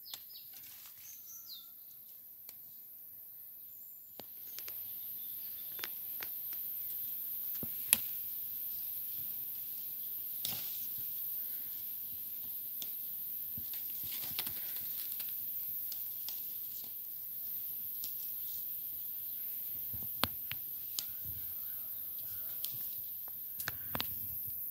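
Leaves and twigs of a green plum tree rustling as plums are picked by hand, with scattered sharp snaps and clicks, the loudest about eight seconds in, over a steady high hiss.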